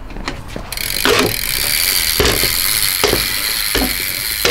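Ratcheting of a BMX drivetrain: a fast, steady clicking buzz, like the rear hub's pawls freewheeling, begins under a second in as a pedal is turned on with a pedal wrench. A knock comes about once a second from the wrench strokes.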